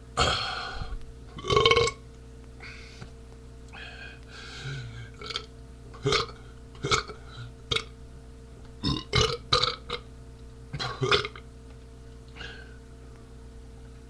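A man burping repeatedly after drinking beer: two fuller belches near the start, then a scattered string of short, clipped burps.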